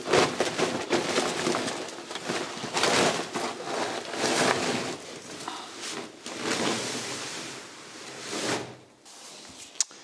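Large woven plastic rubbish bag rustling and scraping as it is lowered on a rope down a brick shaft, in uneven swells, then quieter near the end with one sharp click.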